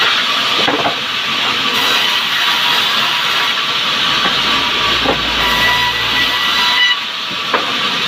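Sawmill band saw running and cutting a log lengthwise, a loud steady hiss. A few wooden knocks sound as boards and logs are handled, and a deeper hum joins from about four seconds to near seven.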